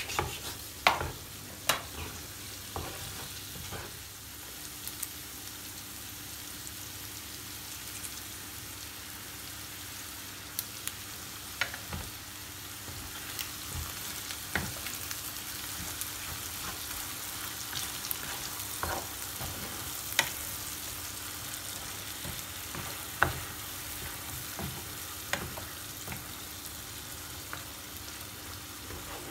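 Chicken and mushroom pieces sizzling in a pan of curry sauce while a wooden spoon stirs them, with sharp knocks of the spoon against the pan every few seconds.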